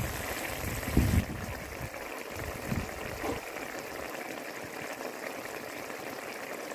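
A watery fig and potato curry boiling in a pan, making a steady bubbling hiss. A low thump comes about a second in, and a softer one follows a little later.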